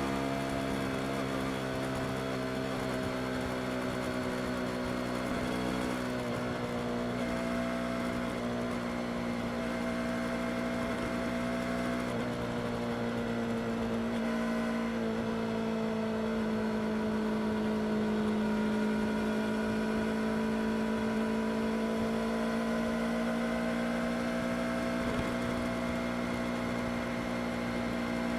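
Yamaha R25 motorcycle's parallel-twin engine running steadily under way, its pitch easing down a little midway and then slowly rising again.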